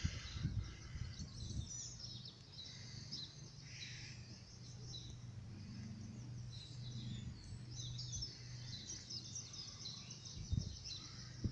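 Small birds chirping and singing faintly, many short calls and trills throughout, over a low steady hum.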